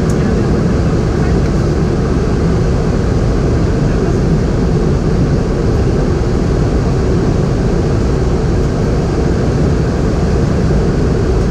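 Steady cabin noise inside a Boeing 717 airliner in flight: an even, loud low rush of airflow and its rear-mounted turbofan engines.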